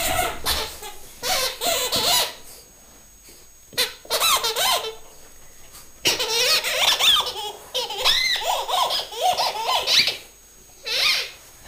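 Rubber squeaky pet toy squeaking as a pet chews it. The squeaks come in quick runs of short squeaks that bend up and down in pitch, with pauses of a second or two between the runs.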